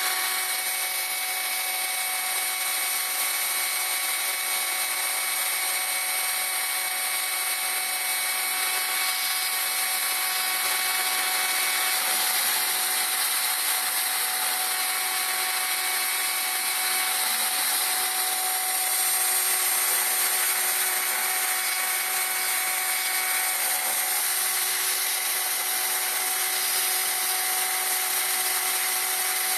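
A CNC router's spindle running at high speed while its small end mill cuts into plywood. The sound is a steady high whine with several held tones over the rasping noise of the cut.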